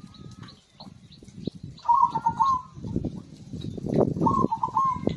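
Zebra dove (perkutut) cooing: two short, stuttering phrases of quick coos, about two seconds apart. Under them, a rough low rustling noise grows loud in the second half.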